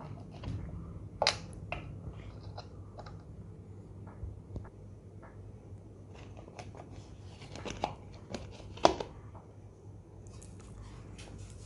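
KDK KY-15D ceiling fan's motor humming steadily, with scattered clicks and rustling handling noises over it; the sharpest click comes about nine seconds in.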